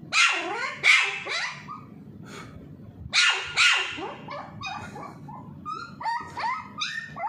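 Small spitz puppy barking: two pairs of sharp, high-pitched barks near the start and about three seconds in, then a run of softer yips toward the end.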